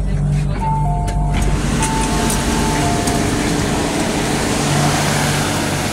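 A two-tone electronic chime sounds twice, each a higher note then a lower one, over the steady low hum of an MTR Kwun Tong Line Q-Train stopped at a platform with its doors open. A steady hiss of noise fills in from about a second and a half in.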